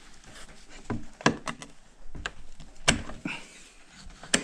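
Wooden rabbit hutch door and its metal latch being handled: a string of sharp wooden knocks and clicks, several of them loud.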